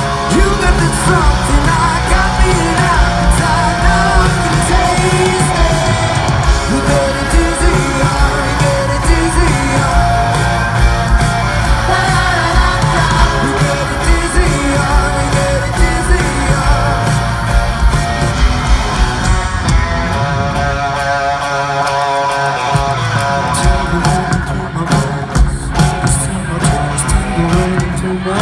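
Rock song with a male lead vocal over electric guitar, bass and drums. About twenty seconds in, the bass and drums drop away, leaving the voice and guitar, then sharp drum hits come back in.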